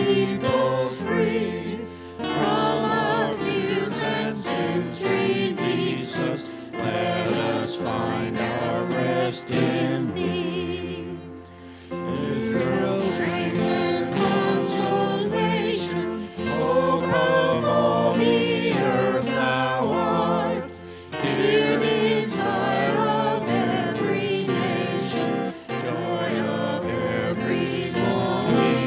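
A small group of singers singing a hymn in unison, accompanied by guitar, phrase after phrase with short breaths between lines.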